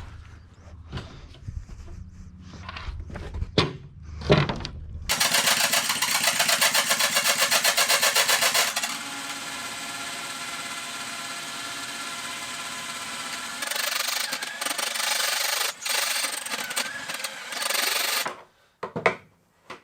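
Handling knocks and clatter, then a cordless drill running in bursts: a loud, fast-pulsing motor whine for about four seconds, easing to a steadier, quieter run, then louder again until near the end, as it works out the rusty fixings holding the ply lining.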